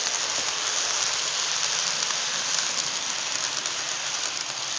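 Model train passing close by: a diesel locomotive and boxcars rolling over the track with a steady rushing clatter of metal wheels on rail, full of fine rapid clicks. It grows louder as the locomotive comes past.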